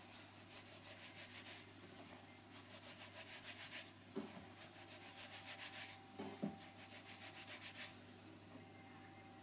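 Flour and butter being worked in a bowl for shortcrust pastry: faint, quick rubbing strokes, about six a second, in four short runs. There are two soft knocks, about four and six and a half seconds in.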